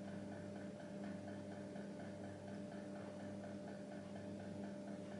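Steady low electrical hum with a faint, fast, regular pulsing, about seven a second.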